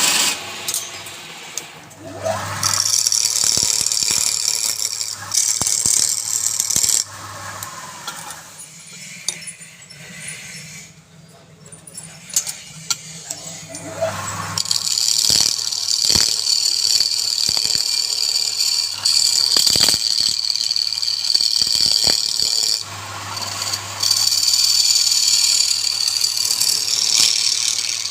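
A power tool working wood in spells, a low motor hum under a hissing cut, stopping and starting several times with clicks and knocks in the pauses.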